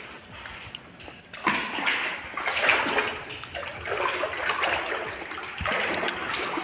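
Someone wading through standing water, the water splashing and sloshing around the legs in irregular surges that start about a second and a half in.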